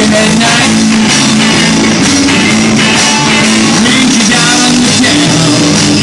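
Live blues-rock band playing at full volume: electric guitars, bass and a drum kit keeping a steady beat.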